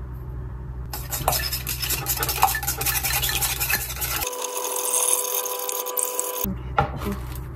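Eggs being beaten in a bowl, a utensil rapidly clicking and scraping against the bowl. About four seconds in, the sound switches for a couple of seconds to a steady hiss with a faint hum.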